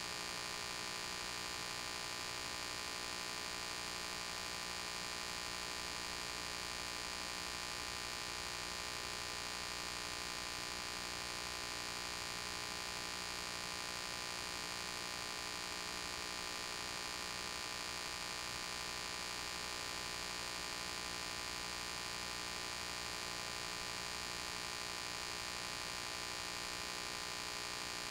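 Steady electrical hum with hiss, unchanging throughout, with no game sound in it.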